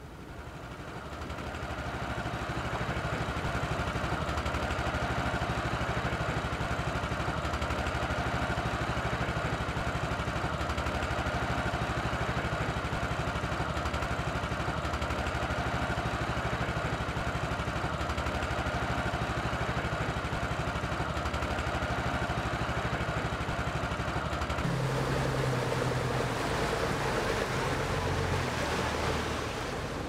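Engine of a river passenger launch running steadily, heard from inside the cabin, with water noise. It swells in over the first couple of seconds and changes tone about 25 seconds in.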